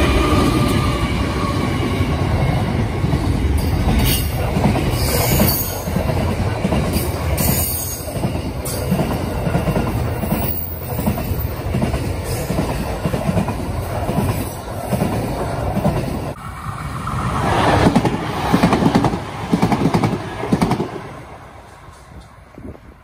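A train passing close by, with wheels clicking over the rails and some wheel squeal. It grows loudest near the end, then fades away as it passes.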